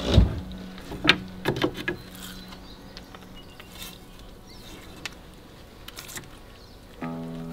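Handling sounds of fish being hung on a wooden drying rack: a thump and a few sharp taps in the first two seconds, then a few faint ticks. A faint held note of background music fades, and the music comes back near the end.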